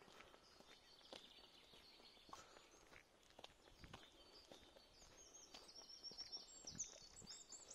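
Soft footsteps about once a second along a forest trail while small songbirds sing, one giving a song of quick repeated high notes in the second half.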